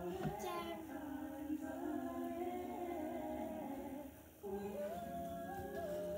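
Singing with long held, slightly wavering notes that step up and down in pitch; it breaks off about four seconds in and starts again half a second later.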